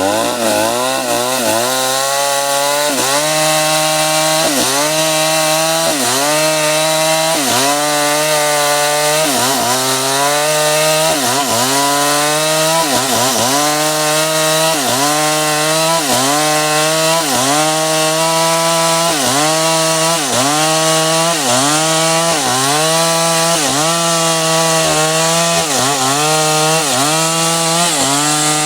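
Stihl MS 382 two-stroke chainsaw running at high revs, its pitch dipping sharply and recovering about once every second and a bit, as the chain bites into wood and lets off in a steady rhythm.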